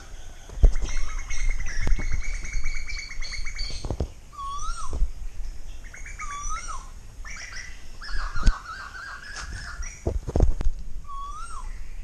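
Birds calling: two spells of fast chattering trills and a short rising-then-falling whistle repeated three times, with a few dull thumps.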